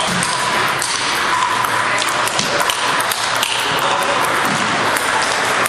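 Table tennis balls clicking off bats and tables, many irregular sharp ticks over a steady background din of a busy hall.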